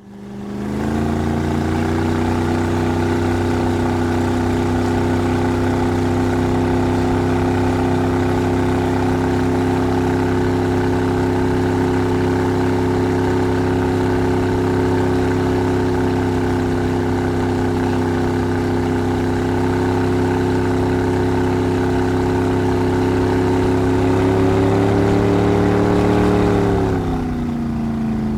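Motorboat engine running steadily under way. The engine note rises slightly, then drops near the end as it eases off.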